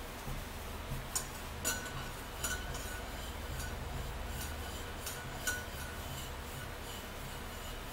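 A few light clinks of tableware, such as a cup or spoon knocking on a mug or dish, each ringing briefly with a high tone, spaced irregularly over a steady low hum.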